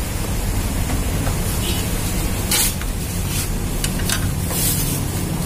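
Wire-harness connectors being handled on a Canon iR photocopier's DC controller board: a few short scratchy rustles and clicks over a steady low hum, mostly in the second half.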